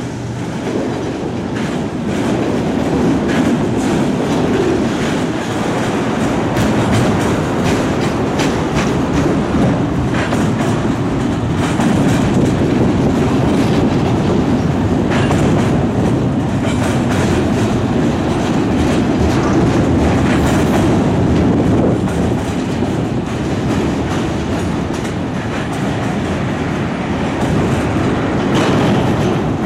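Empty autorack freight cars rolling steadily past, a continuous rumble of rail wheels with a running clickety-clack of wheel clicks.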